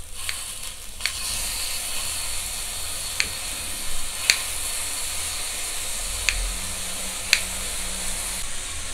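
Beef top blade (부챗살) slices sizzling on a small tabletop grill's hot grate, a steady frying hiss. About six sharp clicks are spread through it as metal tongs and kitchen scissors work the meat.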